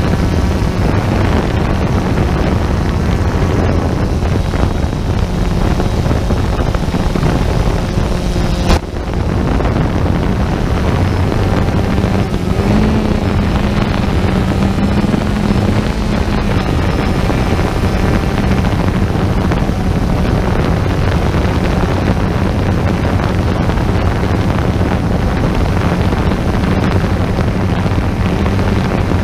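A vehicle's engine running steadily at low speed, with wind on the microphone; its note rises a little for a few seconds about halfway through. A single sharp knock about nine seconds in.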